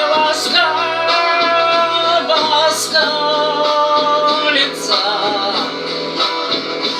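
A woman singing a slow song in long held notes over a steady instrumental backing.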